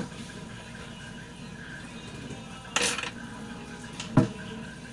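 A few short, sharp knocks and clinks of small hard objects being handled, over a steady low background noise.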